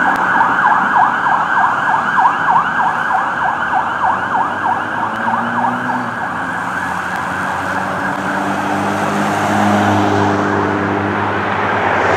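Fire truck siren on a fast yelp, sweeping up and down about four times a second, fading after about five seconds. A low steady droning tone comes in around halfway and grows louder near the end.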